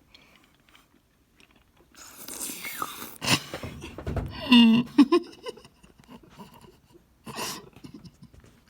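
A person with a mouthful of Warheads extreme sour hard candies reacting to the sourness: hissing breaths, mouth clicks and sucking, and a strained wordless whine that bends in pitch. The sounds start about two seconds in and die down after five, with one more breath near the end.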